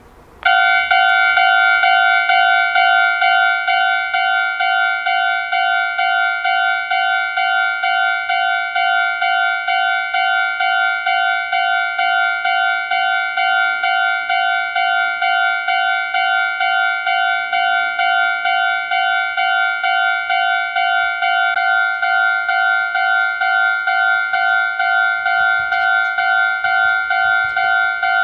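Electronic railway level-crossing alarm ringing: a loud two-tone ring repeating rapidly and evenly, starting about half a second in and going on without a break.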